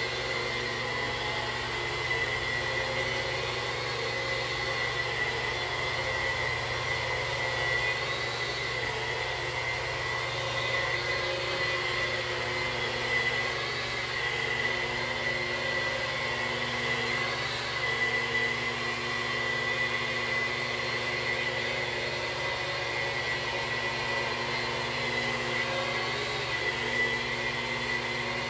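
Handheld power polisher fitted with a 3M 4100 white Super Shine pad, running steadily with a high whine as the pad buffs hard water spots off shower glass.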